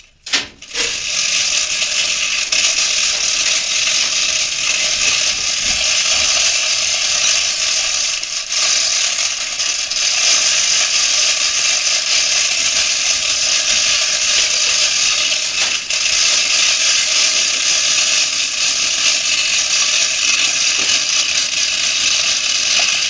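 Hand chain hoists being hauled on, their chains and ratchet pawls clattering, heard sped up as one continuous dense rattle that starts abruptly just under a second in.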